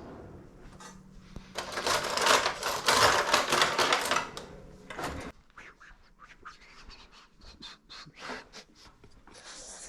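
Plastic shrink-wrap being torn and pulled off a board game box by hand, without a knife: a loud stretch of crackling about one and a half seconds in, lasting some three seconds, then lighter scattered rustles and clicks.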